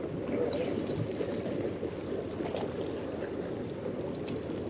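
Water sloshing steadily against a small boat's hull, with a few faint clicks from a spinning reel being cranked while a hooked fish is fought.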